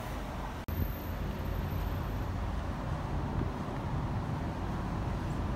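Outdoor city ambience: a steady low rumble of wind on the microphone with distant traffic, starting after a brief dropout under a second in.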